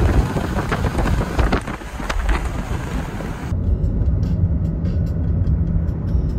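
Car driving along a road: a loud, steady low rumble of engine and road noise. About three and a half seconds in the sound changes abruptly to a duller rumble with a steady low drone.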